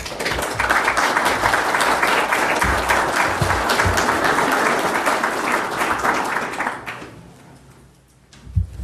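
Audience applauding in a lecture hall, fading away about seven seconds in, followed by a few soft knocks near the end.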